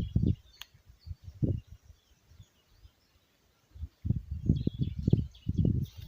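Wind buffeting the microphone in irregular low rumbling gusts, with a lull in the middle, and faint high chirps of birds or insects in the background.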